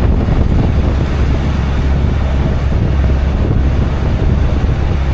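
Bus engine and road noise heard from inside the cabin: a steady low drone with a rushing hiss as the bus climbs a steep mountain road.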